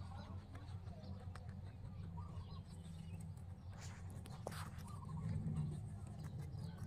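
A rabbit nibbling fresh leafy greens: faint quick crunching clicks as it chews, with birds chirping faintly in the background over a low steady hum.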